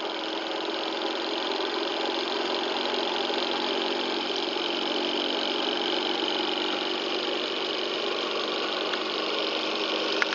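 Small FA.MT.047 Stirling hot-air engine, heated by an alcohol burner, running steadily at speed with a constant mechanical running sound that grows a little louder over the first couple of seconds. A faint click comes near the end.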